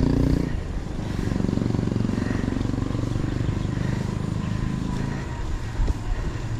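A motor vehicle's engine running close by. It is loud at first, drops about half a second in, and then goes on as a steadier, lower hum.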